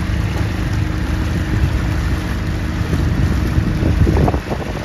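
Dinghy's outboard motor running steadily as the boat moves along the canal.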